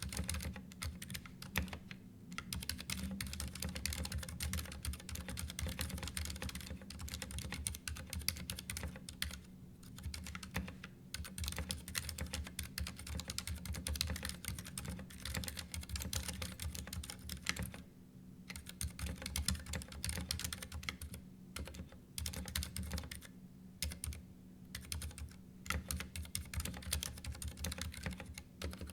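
Continuous typing on a Ducky One 2 Mini mechanical keyboard: rapid key clicks in runs, broken by a few short pauses.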